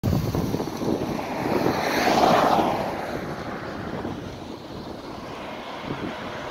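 Highway traffic with wind buffeting the microphone; a vehicle passes, loudest about two seconds in, then fades.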